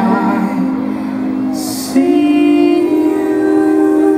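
Fireworks show soundtrack music with singing, played over loudspeakers. About halfway through there is a brief hiss, and then a new chord comes in and is held.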